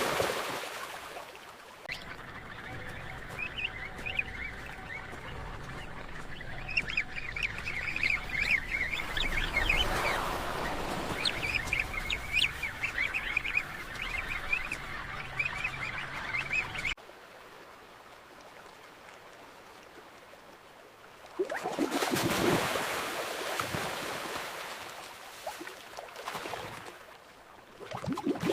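Penguin colony calling: many overlapping short, high calls over a low rumble, which cut off abruptly about halfway through. After a few quieter seconds, a surge of surf or splashing water rises and fades.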